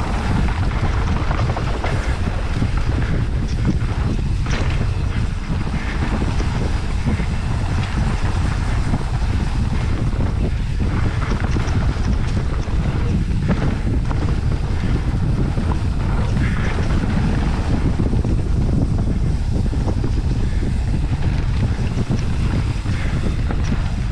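Wind buffeting an action camera's microphone while mountain biking down a dirt singletrack, a steady heavy rumble with the occasional knock and rattle from the trail.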